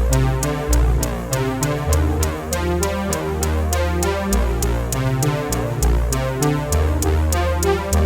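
Background music: an electronic instrumental with synthesizer chords, deep bass and a steady drum-machine beat with quick regular hi-hat ticks.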